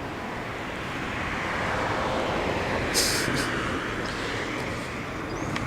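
A car passing on the road: tyre and road noise swelling to a peak and fading away, with a short sharp click about three seconds in.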